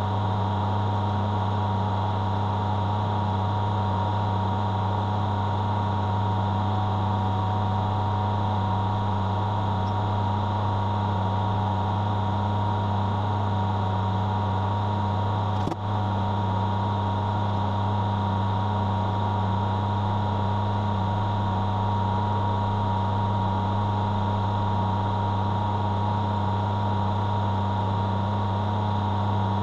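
Metal lathe running at a steady speed, a low hum with a steady whine, while a 5 mm tapping drill in the tailstock chuck bores into the spinning bolt shank.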